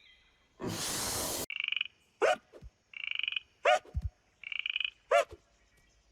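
Cartoon frog sound effect croaking three times in short rattling croaks. Each croak is followed by a quick squeaky blip that rises and falls, ending in a low thud. A brief burst of noise comes about a second in.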